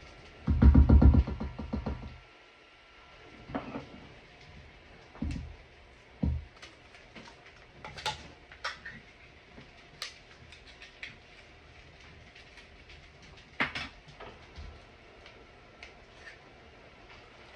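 Knocks and clicks of tin cans and a spatula handled over a metal mixing bowl as condensed soup is emptied in. A louder, low clatter lasts about a second and a half near the start, followed by scattered short taps.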